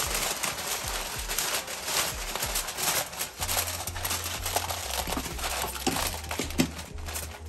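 Heavy-duty aluminum foil crinkling and crumpling as gloved hands fold and press it into a wrap.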